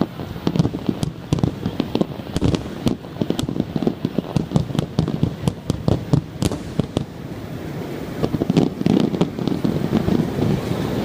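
Aerial fireworks bursting in rapid succession: many sharp bangs and crackles overlapping with low booms, growing denser and heavier about eight seconds in.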